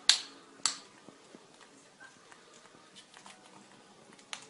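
Two sharp clicks close together, then faint small ticks and taps, as an African grey parrot handles and chews a nut and a toy with its beak.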